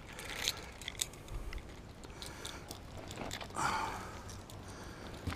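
Faint rustles and small clicks as a small pike and the lure hooked in its mouth are handled, with a louder rustling swish about three and a half seconds in.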